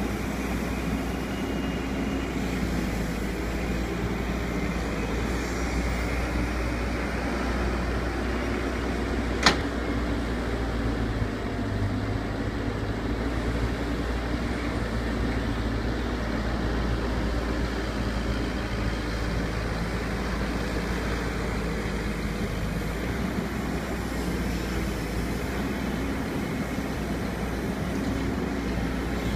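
Cat 314C LCR excavator's diesel engine running steadily as it digs and swings loads of soil, with one sharp knock about nine and a half seconds in.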